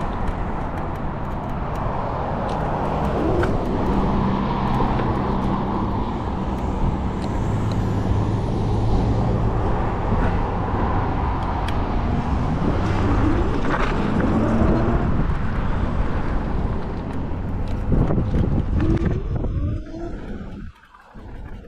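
Steady wind and road noise from riding an Apollo Phantom V2 electric scooter, with car traffic on the road alongside. The noise drops off sharply near the end.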